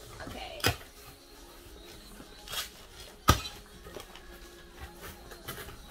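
Cardboard shipping box being opened by hand: a few short rustles and knocks as the flaps are pulled up, the loudest a sharp knock a little past halfway.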